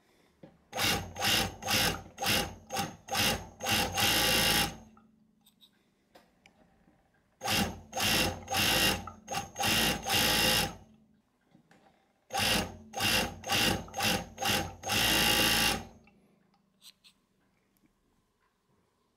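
Industrial overlock machine (DCR942) stitching an edge in three spells, each a string of short stop-start bursts ending in a longer continuous run of about a second.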